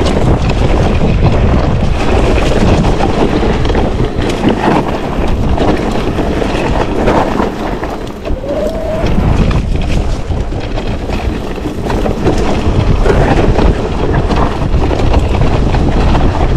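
Wind buffeting the microphone and tyres rolling over a dry dirt trail as a Propain Ekano electric enduro mountain bike descends, with scattered knocks and rattles from the bike over bumps.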